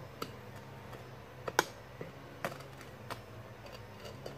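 A string of short, sharp metal clicks and taps, about seven of them, the loudest about one and a half seconds in, over a low steady hum: a metal spatula knocking against a metal pizza pan as it is worked under a baked pizza.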